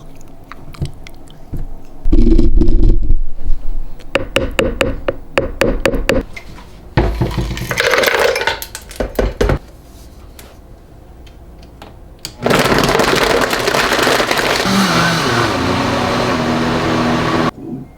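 Electric blender running for about five seconds near the end, blending a shake, starting and stopping abruptly. Before it come a run of clicks and knocks and a few short loud bursts of noise.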